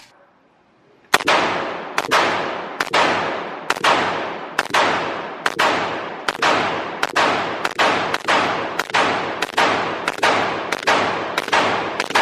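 Draco AK-pattern pistol fired semi-automatically in a steady string of about thirteen shots, a little over one a second, starting about a second in. Each shot echoes off the walls of an indoor range.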